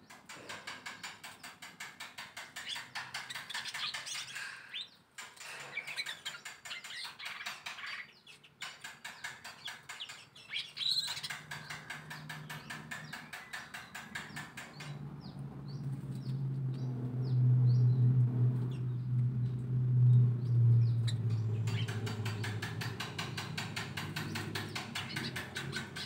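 Birds chirping and twittering in quick, dense runs. From about halfway through, a louder low drone of unclear source sets in for several seconds, with a few short chirps over it, before the chirping picks up again near the end.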